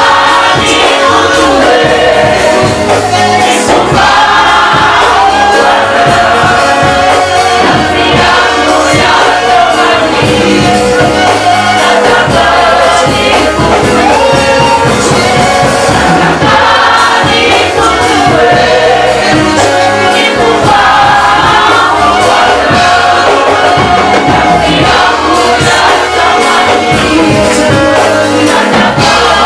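Live gospel worship music: a choir singing together over a band with an even beat.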